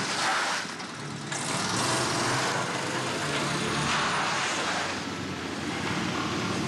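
A car's engine revving hard as it swerves, with its tyres hissing and skidding through slush on a wet road. The noise swells and eases several times.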